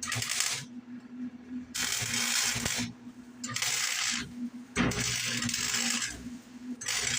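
Aerosol spray-paint can hissing in five short bursts of about half a second to a second each, touching up fresh paint on a welded part, over a steady low hum.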